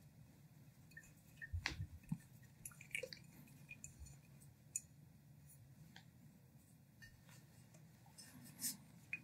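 Waiter's corkscrew twisted down through a wax seal into a wine bottle's cork: faint, scattered small creaks, scrapes and clicks of the metal worm and of the glass bottle being handled.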